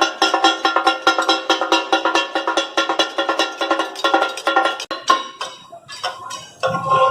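Steel spatulas chopping and clanging on a flat iron griddle as katakat offal is cooked: a fast, ringing metallic clatter that thins to sparser strikes about five seconds in.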